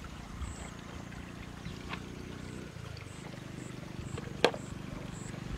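Steady low rumble with one sharp clink about four and a half seconds in, as a plastic bucket with a wire handle is set down in the grass.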